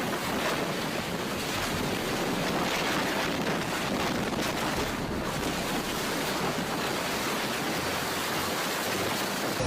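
Strong storm wind blowing with a steady rush, buffeting the microphone with uneven low rumbles.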